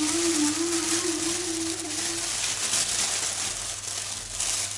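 Plastic roasting bag rustling and crinkling as chicken pieces are tipped into it from a glass bowl. A drawn-out, wavering voice-like tone runs over the first two seconds.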